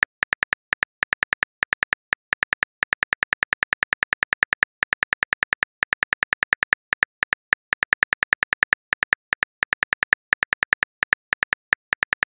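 Simulated phone keyboard typing clicks: a quick run of short, sharp key-tap clicks, several a second, with brief pauses between runs, one click per letter as a text message is typed out.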